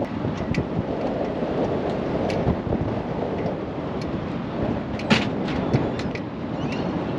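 Wind buffeting the microphone on a moving cruise boat, a steady low rumble mixed with the boat's running noise, with a few sharp clicks, the loudest about five seconds in.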